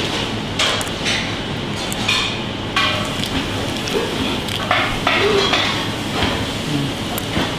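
Shell of a raw carabinero prawn being cracked and peeled apart by hand: short, irregular crackles and snaps over a steady background hum.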